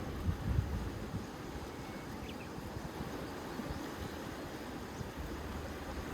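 Wind buffeting the microphone in uneven gusts over the low wash of sea surf.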